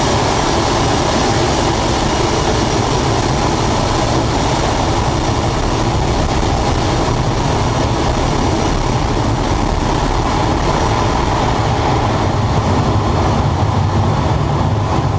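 Loud, steady roar of rushing air and engine noise from inside a large aircraft's open main landing-gear well in flight.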